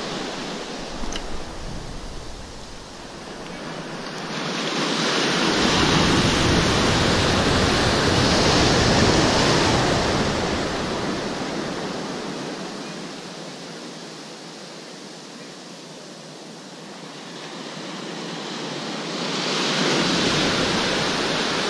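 Sea surf breaking and washing in at the jetty in slow swells: one surge builds about four seconds in and fades by about twelve seconds, a quieter lull follows, and a second surge comes in near the end.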